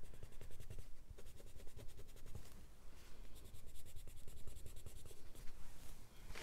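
Soft coloured pencil scratching on watercolour paper in quick, repeated shading strokes.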